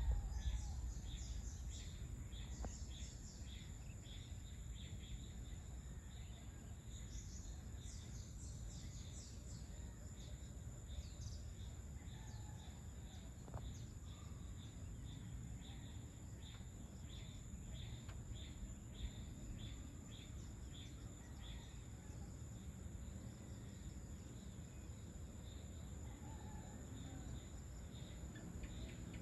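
Outdoor ambience of insects calling: a steady high drone with short chirps repeating a few times a second, over a low background rumble.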